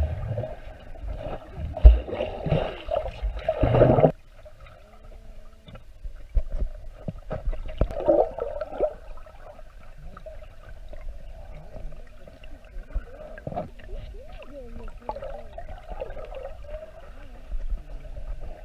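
Dogs paddling in a swimming pool, heard through an underwater camera: muffled churning and gurgling water. It is loud for the first four seconds, then drops suddenly to a quieter murmur with scattered small knocks.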